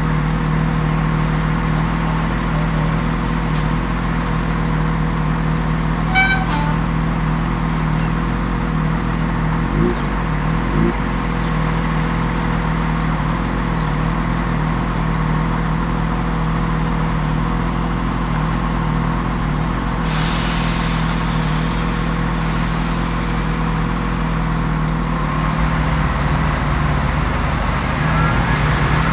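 Level crossing warning alarm sounding continuously while the barriers are down, a steady tone that warns a train is approaching.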